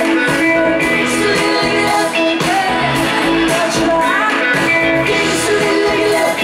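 Live pop-rock band playing a song: electric guitars, bass, keyboards and drums, with a woman singing lead, heard loud and steady over the PA from within the crowd.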